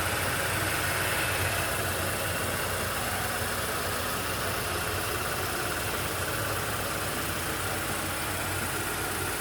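Renault Megane II engine idling steadily, with a low hum under a dense hiss.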